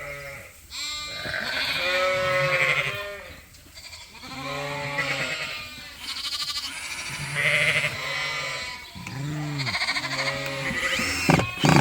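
Sheep bleating in a barn pen: a string of repeated calls, one every second or two, some overlapping, with two sharp knocks near the end.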